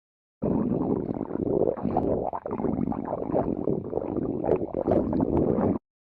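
Stomach growling: one long, irregular gurgling rumble that starts abruptly and cuts off suddenly near the end.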